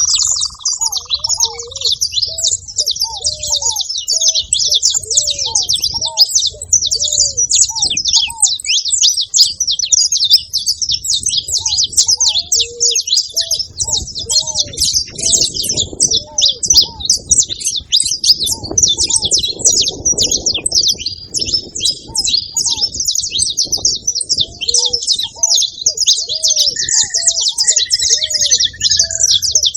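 Dense, continuous high chirping from saffron finches, with a ruddy ground dove's short coos repeating underneath in runs of about one or two a second.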